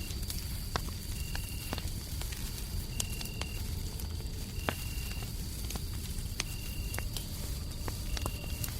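Fireplace crackling with scattered sharp pops, over a soft steady hum of white noise. Crickets chirp throughout: a short trill about every second and a half, over a high, steady insect tone.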